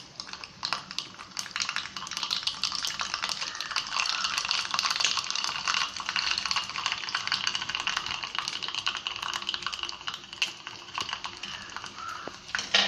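Mustard seeds popping and crackling in hot coconut oil for a tempering: a dense, rapid patter of small pops, thickest in the middle, with a louder sizzling burst near the end.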